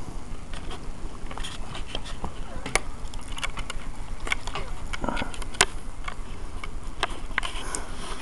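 A dog moving about right against a phone's microphone: fur brushing over it, with scattered sharp clicks and scrapes.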